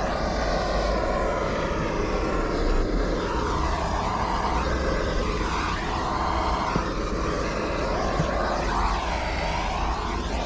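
Gas blowtorch burning with a steady roar as its flame scorches the metal runners of a timber open mesh beehive floor. The tone of the roar rises and falls every second or two as the flame is moved.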